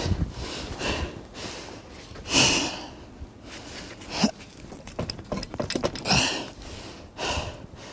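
A man breathing hard with effort, about one breath every second or two, as he works a heavy bandsaw mill wheel by hand.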